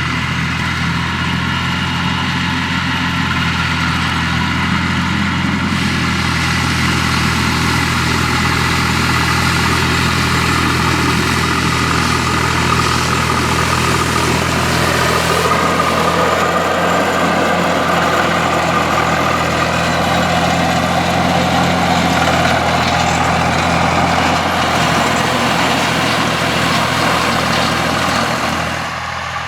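Volvo BM farm tractor's diesel engine running steadily in field work, its note shifting about halfway through.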